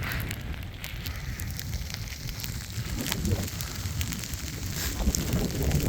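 Wind rumbling on a phone's microphone outdoors, with scattered crackles and crunches over it.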